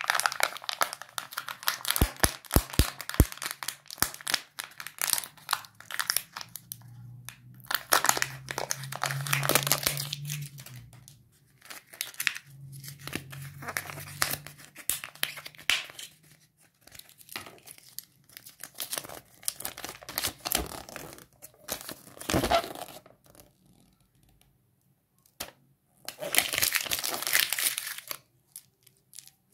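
Foil seal of a Kinder Joy egg crinkling and tearing as it is peeled off, then handling of the plastic capsule and toy pieces with more spells of crinkling, separated by short pauses, and a single sharp knock a little before a final burst of crinkling near the end.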